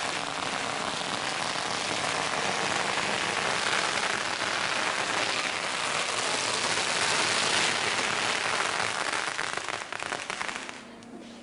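Strings of firecrackers hung on a rack going off together in a dense, continuous crackle of pops, like heavy rain, easing off sharply near the end.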